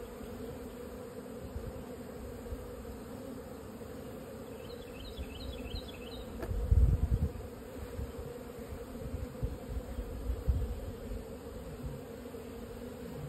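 Honeybees buzzing in flight around the hive entrance, a steady hum throughout. Bursts of low rumble come and go, loudest about seven seconds in.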